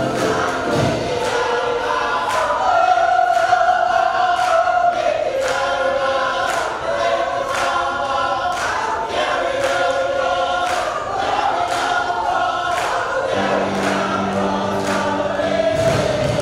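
Gospel choir singing a slow song in full voice, with a steady beat about twice a second under the sung parts.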